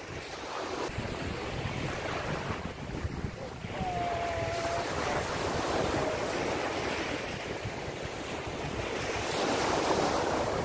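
Small sea waves breaking and washing up on a sandy beach, with wind buffeting the microphone. The surf swells louder near the end as a wave breaks.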